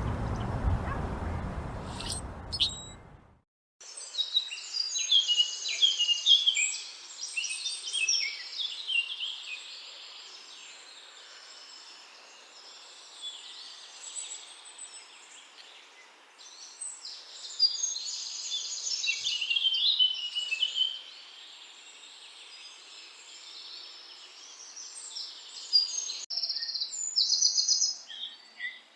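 Wild songbirds singing: rapid, high chirps and trills in busy bursts, with shorter repeated chirps near the end. It opens with a few seconds of rushing noise and a couple of sharp chirps, which cuts off abruptly.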